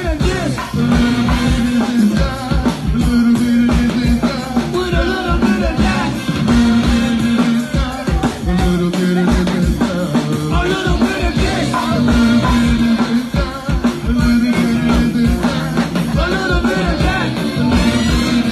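Live go-go band playing through a PA: a dense drum and conga beat with a repeating bass line and singing over it.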